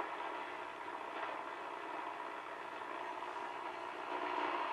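Hallicrafters SX-100 shortwave receiver's loudspeaker giving a steady hiss of static and band noise with no station tuned in. Near the end a faint low tone comes in as the dial is turned.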